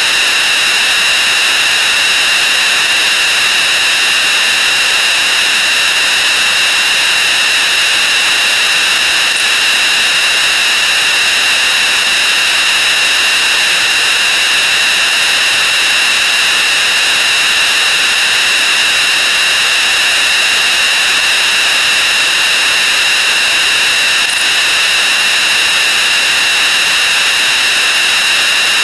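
Counting sound effects sped up 64 times and piled on one another, merged into a loud, steady wall of hissing noise with a constant high whine on top.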